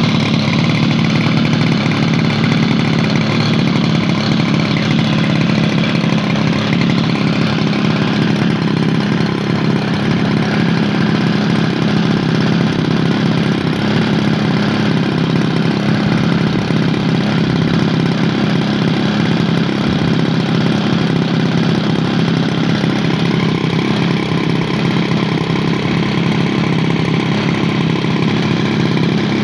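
Graupner Starlet model airplane's nose-mounted engine running steadily on the ground, its propeller turning, with no change in speed.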